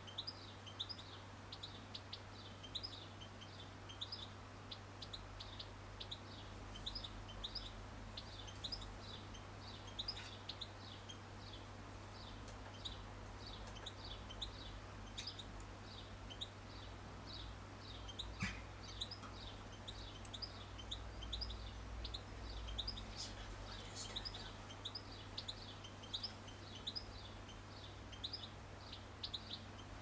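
Small birds chirping: short high notes repeated steadily, about two or three a second, over a low steady hum. A single sharp click a little past halfway.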